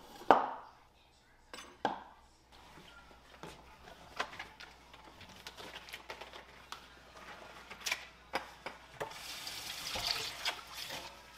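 Kitchen sink work: dishes and utensils knocking and clinking now and then, then a tap running for about two seconds near the end.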